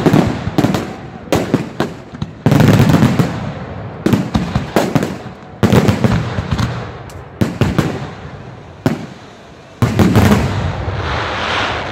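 Aerial firework shells bursting in quick succession: a rapid run of sharp bangs, with several heavier booms among them.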